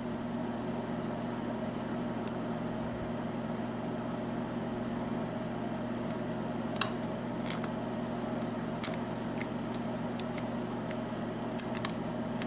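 Light, sparse metallic clicks of a lock pick working the serrated and spool security pins of a Sargent six-pin lock cylinder, starting about halfway through, over a steady low hum.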